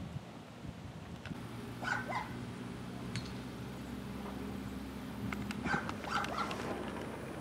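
Dog barking: a few short barks about two seconds in and a cluster about six seconds in, over a low steady hum.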